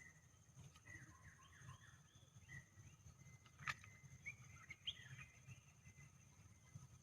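Faint bird chirps, a few quick rising and falling calls in two short bouts, with a single sharp click about halfway through.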